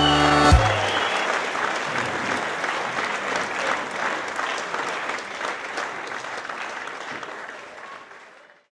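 Audience applauding. The song's last held chord cuts off about half a second in, and the clapping then fades steadily away to nothing near the end.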